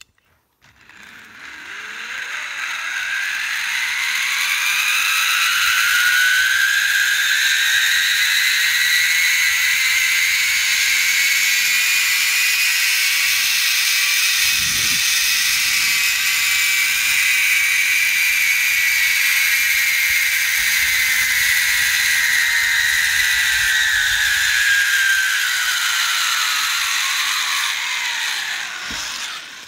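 Zipline trolley pulleys running along a steel cable, making a whirring whine. It rises in pitch as the rider picks up speed, holds high through the middle, then falls as the trolley slows into the landing platform and stops, with a brief low thump about halfway.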